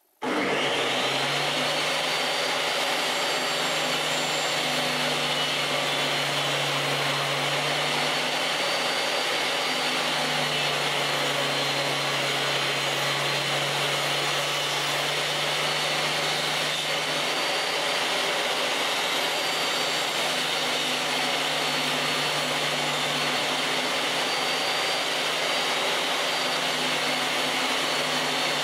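DeWalt table saw switched on, its motor spinning up about a quarter second in and then running steadily while a narrow chestnut strip is fed through the blade.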